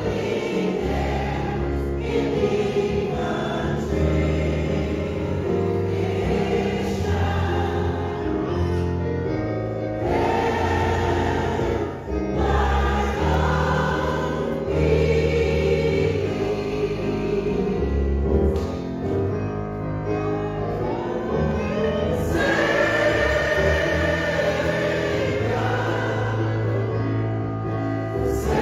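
Gospel choir singing a hymn together, with keyboard accompaniment holding steady bass notes underneath.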